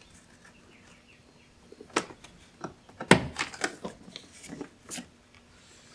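Plastic cable retaining clips on a Toyota Highlander rear door's inner handle being pried open with a fingernail and the cable ends pulled out. It goes as a single sharp click about two seconds in, then a run of clicks and light plastic knocks, the loudest just after three seconds.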